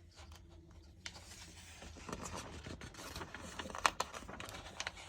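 Faint rustling and scraping of paper as pages of an instruction booklet are handled and turned, with small clicks and one sharper tap about four seconds in.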